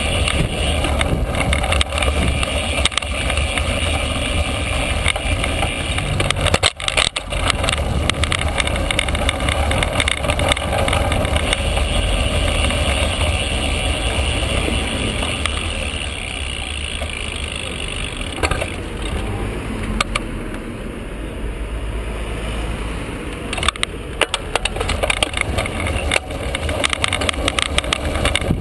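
Riding noise from a bicycle-mounted camera: a steady rumble of wind on the microphone and tyres on the road, with knocks and rattles from the mount now and then. It eases somewhat for a few seconds past the middle.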